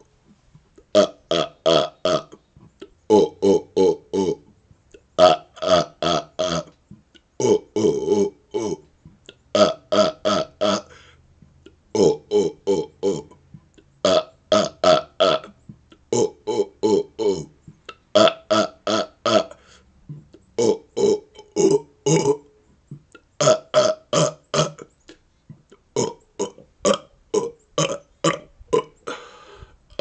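A man burping in rapid-fire strings of four or five quick, pitched burps, a new string about every two seconds.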